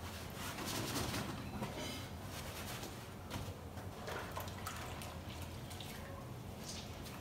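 Fabric being washed by hand in a plastic basin of soapy water: irregular sloshing and dripping as it is rubbed and squeezed.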